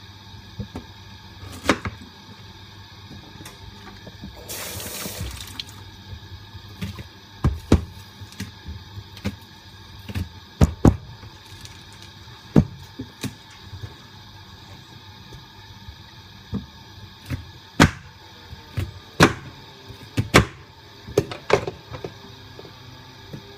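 Kitchen knife chopping a green vegetable and ears of corn on a cutting board: irregular sharp knocks, some single and some in quick runs, with the heaviest chops in the middle and later part. A brief hiss lasts about a second, about five seconds in.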